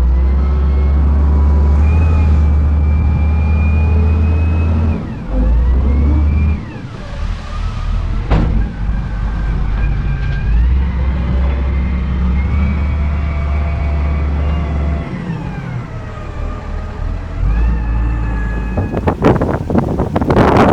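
JCB backhoe loader's diesel engine working, its pitch rising and falling several times as the revs change. A heavy low rumble comes and goes in long stretches, and a crackling noise starts near the end.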